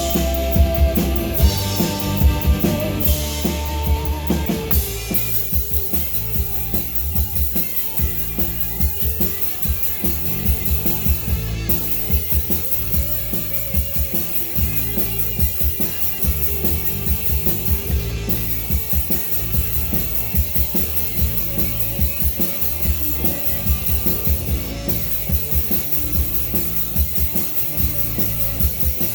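Live rock band playing: drum kit with a steady bass-drum beat, electric guitar and bass.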